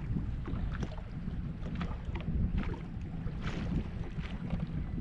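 Wind rumbling on the microphone, with scattered short sharp sounds over it.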